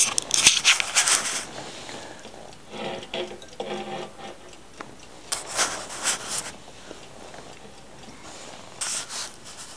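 Handling noise as a brass twin-bell wind-up alarm clock is turned around by hand, with rubbing and scraping in a few short bouts: a little at the start, again in the middle and once near the end. In the quieter stretches between them the clock's movement ticks.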